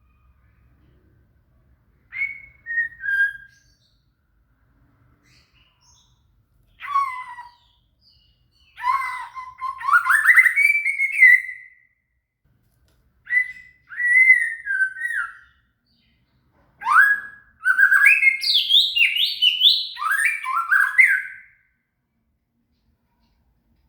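White-rumped shama (murai batu) singing in five separate phrases of whistled, gliding notes with pauses between, the longest about three seconds and the last the busiest.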